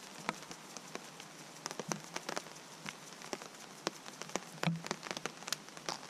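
Steady rain falling, with heavier drops tapping irregularly on the tarp shelter overhead.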